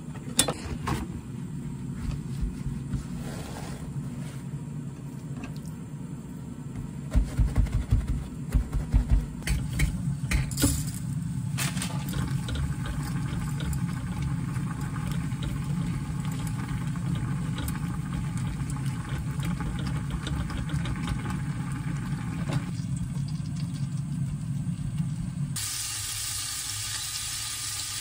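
Kitchen cooking sounds over a steady low rumble: a few clicks and knocks, and a run of low thumps about seven to ten seconds in. Near the end the rumble gives way to a steady sizzle of butter melting in a hot pot.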